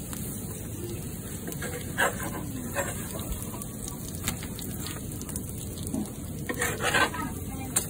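Pancakes frying in butter on a hot griddle, a steady sizzle, with a metal spatula scraping and knocking on the griddle as pancakes are lifted and turned: a couple of strokes about two seconds in and a busier run near the end.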